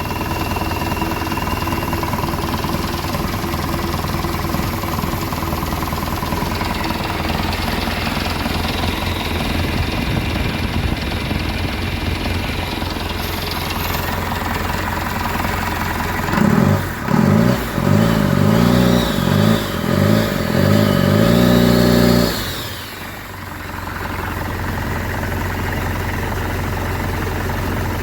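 Toyota Bandeirante's 14B four-cylinder diesel engine running at idle, then revved in several short blips about two-thirds of the way in, briefly held up, and dropping back to idle.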